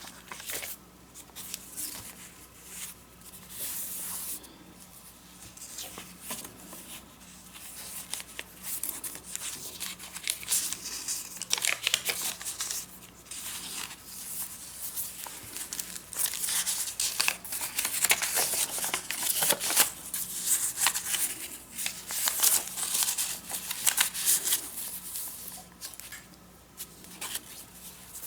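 Paper pages of a small handmade junk journal rustling and crinkling as they are handled and turned, in irregular bursts throughout.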